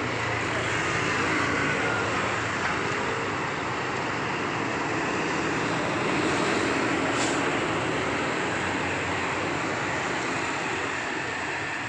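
Steady road traffic noise with the engines of passing buses and other heavy vehicles. A short high hiss comes about seven seconds in.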